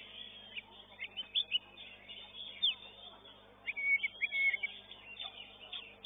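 Oriental magpie-robin (kacer) singing: a quick string of sharp chirps and short whistled notes, loudest in a burst of rapidly repeated notes a little past the middle.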